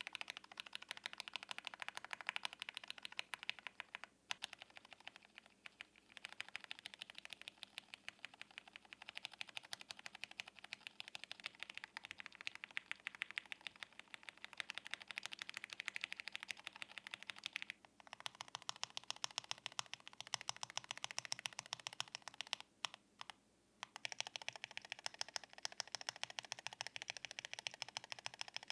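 Mode Eighty tenkeyless mechanical keyboard with stock, lightly pre-lubed Mode Reflex linear switches being typed on quickly: a steady stream of key clacks, broken by a few brief pauses. Near the end it is the brass-plate build.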